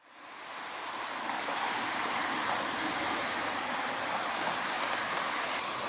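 Steady road noise of a car driving on wet asphalt, tyres hissing on the road, heard from inside the cabin through the dashcam's microphone. It fades in over about the first second, then holds even.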